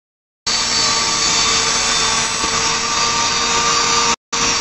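WT130 handheld rotor-stator homogenizer running at speed with its dispersing shaft in a beaker of liquid, a steady high-speed motor whine with hiss. It starts about half a second in and cuts out for a moment near the end before carrying on.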